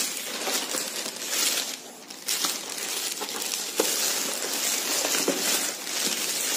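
Plastic courier mailer bag crinkling and rustling as it is handled and a cardboard shoebox is pulled out of it, with a short lull about two seconds in.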